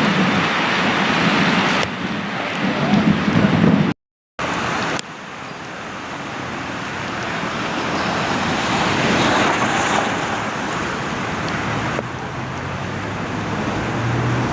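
Steady rushing noise of heavy rain and wind on the microphone, broken by abrupt cuts, with a brief drop to silence about four seconds in.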